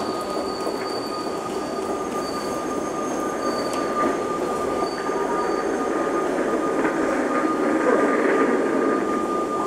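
Metro train running through the station: a continuous rumble with a steady high wheel squeal over it, getting a little louder near the end.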